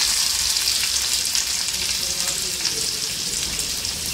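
Chopped onions, tomatoes and green capsicum sizzling in hot ghee in a kadhai just after being added: a steady frying hiss with light crackles, easing off slightly.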